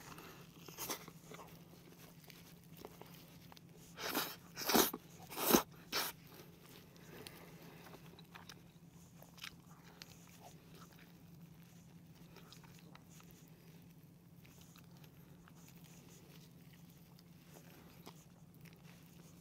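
Close-up eating of fried chicken: several sharp bites and crunches, the loudest four coming about four to six seconds in, then quiet chewing.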